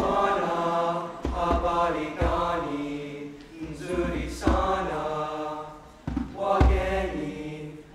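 Choir singing in harmony in Swahili, with piano accompaniment and a few deep hand-drum beats.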